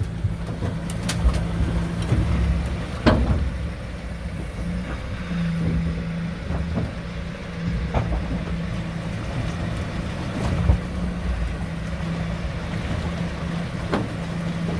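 Sherp 10x10 amphibious all-terrain vehicle's engine running steadily under way, with a constant low hum. A few sharp knocks or clunks come at irregular moments.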